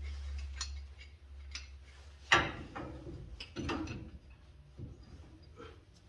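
Metal clicks and knocks of a pipe wrench being handled and set on a pipe fitting, with one sharp knock about two seconds in and another a little over a second later.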